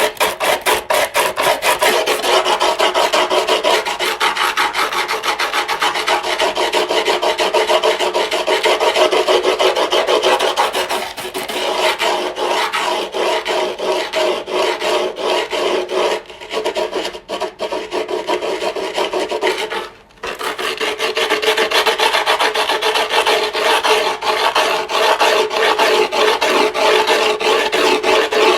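Skateboard griptape being filed: a continuous run of rapid rasping strokes of the file scraping the gritty tape, with a brief break about two-thirds of the way through.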